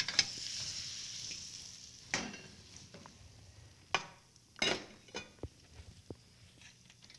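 Dried apples and raisins sizzling in butter in a frying pan, louder for the first couple of seconds and then fading. A utensil knocks and scrapes against the pan a few times while the food is stirred.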